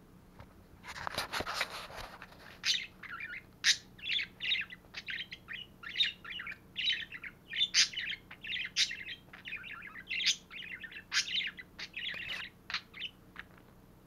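Pet budgerigar chattering: a rapid run of short chirps, clicks and warbled notes. There is a brief scratchy noise about a second in.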